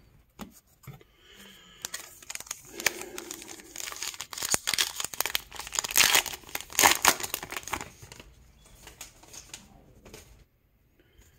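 Plastic wrapper of a baseball card pack crinkling and tearing as it is opened, loudest about six to seven seconds in.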